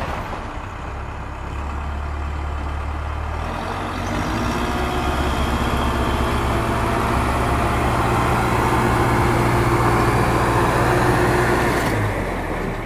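Truck engine running steadily at a low, even pitch, growing a little louder about four seconds in and falling back near the end.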